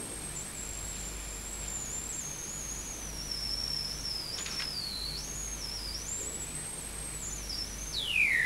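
A single high, thin tone that wavers slowly in pitch, sinking gradually and then rising again, before gliding sharply downward near the end.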